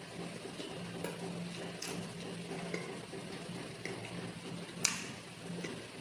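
Eating sounds: chewing and wet mouth and hand noises, with a few short crisp clicks, the sharpest about five seconds in. A steady low hum runs underneath.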